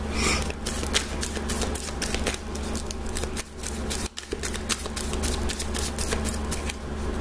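A deck of cards being shuffled by hand: a busy run of quick, sharp card clicks and flicks.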